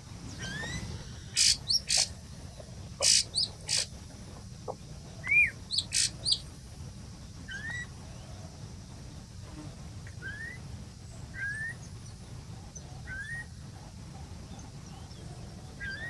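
Wild birds calling: a short upward-sweeping whistle repeated every second or two, with several loud, sharp chirps in the first half, over a steady low background noise.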